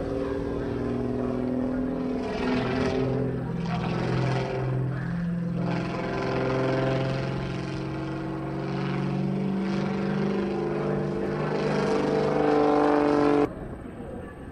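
Aerobatic biplane's piston engine and propeller droning, the pitch rising and falling as the plane climbs and dives. The sound drops away abruptly near the end.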